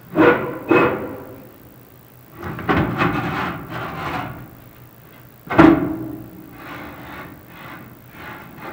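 Chimney inspection camera knocking and scraping against the inside of a prefab fireplace's metal chimney pipe: several metallic bangs that ring on, the loudest about five and a half seconds in, with scraping between them.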